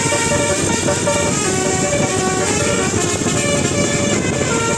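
Basuri telolet bus horn playing a melody: a quick run of horn notes that step from pitch to pitch every fraction of a second, over steady outdoor street noise.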